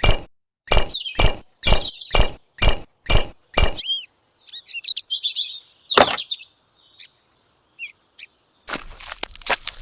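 A run of sharp knocks, about two a second, followed by a few short chirping sounds and single knocks, then a dense burst of rapid clattering near the end.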